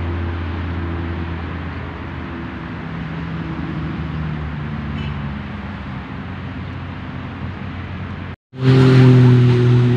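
Road traffic: vehicle engines running with a steady noise and low hum. The sound cuts out for a moment about eight and a half seconds in, then comes back louder.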